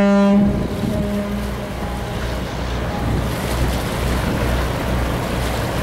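The ferry Phivos's ship whistle gives a single salute blast. It is loud at first, fades and stops about a second in. Wind rumbles on the microphone and the ferry's wake washes throughout.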